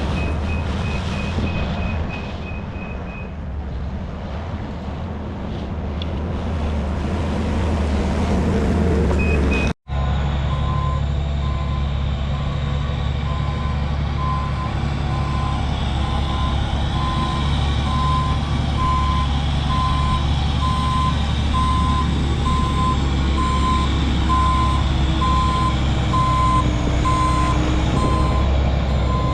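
Diesel heavy equipment running with backup alarms beeping: a higher-pitched alarm beeps rapidly for the first few seconds, then after an abrupt cut a lower-pitched one beeps about once a second over the steady engine rumble.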